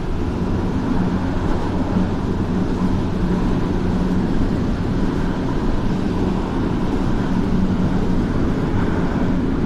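Light-rail train running, heard from inside the car: a steady rumble with a steady low hum.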